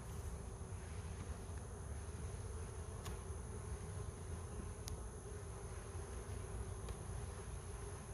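Honeybees buzzing steadily around an open hive, with a few light ticks.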